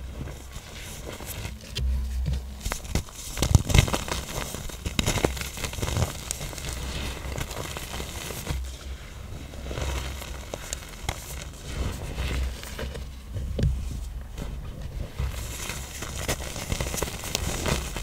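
Pressed blocks of black iron oxide powder being crushed, crunching and crumbling in dense, irregular crackles over soft low thuds. The loudest crunches come about four seconds in.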